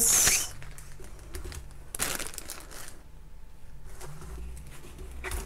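A rolled diamond-painting canvas and its paper and plastic wrapping being handled, crinkling loudly for the first half second, then softer rustles with a short crackle about two seconds in.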